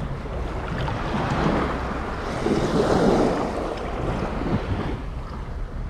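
Small sea waves washing at the water's edge, with wind buffeting the microphone; the water noise swells louder about halfway through.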